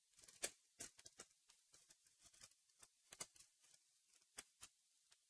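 Faint, irregular plastic clicks and small snaps as a laptop's plastic screen bezel is worked loose from its clips by hand.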